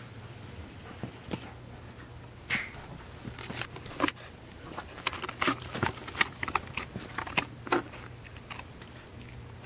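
Small dog chewing and gnawing on a bone: a run of irregular sharp cracks and crunches, densest in the middle of the stretch.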